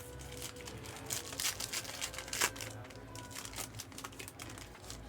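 Crinkling and tearing of trading-card pack wrappers being handled and opened, a run of sharp rustles with the loudest about two and a half seconds in.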